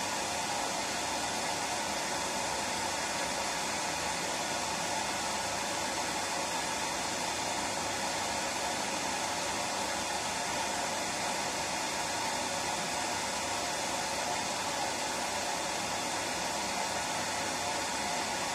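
Hair dryer running steadily: an even, unbroken rush of blowing air and motor hum, used as white noise for a baby's sleep.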